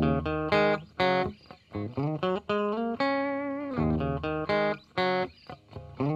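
Instrumental guitar intro music: a single melodic line of plucked notes, several sliding up in pitch.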